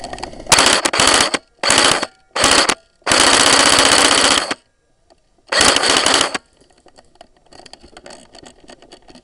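Tokyo Marui G3 airsoft electric gun firing on full auto, heard from a camera mounted on the gun: five bursts of rapid shots, the fourth, about a second and a half long, the longest, then only faint clatter for the last few seconds.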